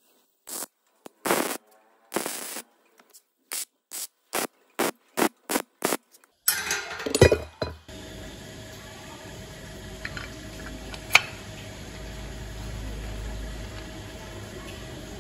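A run of short hissing bursts, each cut off sharply, coming quicker and shorter towards the middle. After that, a steady low workshop hum with two sharp metal clanks as a steel chain sprocket and a reverse gearbox are handled and offered up to the engine.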